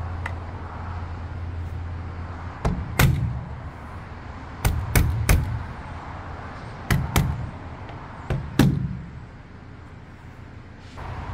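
A soft-faced mallet tapping metal roof trim molding down onto a car's vinyl top. There are about nine sharp taps in quick groups of two or three.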